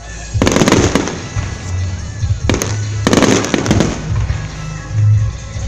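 Aerial fireworks shells bursting overhead: a quick cluster of sharp bangs about half a second in, a single bang at about two and a half seconds, then another cluster just after three seconds.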